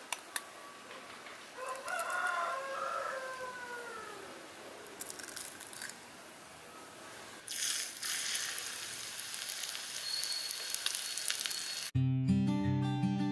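A rooster crows once, about two seconds in, one long call that falls away at the end. Later comes a steady hiss, and acoustic guitar music starts near the end.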